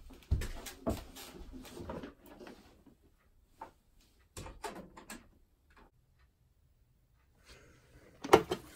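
Scattered knocks and clunks of objects being handled and set down, with a quiet stretch past the middle and a loud knock near the end.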